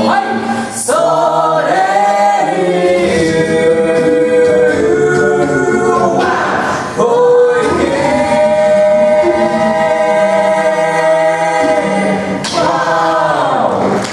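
Six-voice a cappella group singing in close harmony without instruments, holding long sustained chords. Near the end the voices slide downward together into the closing phrase.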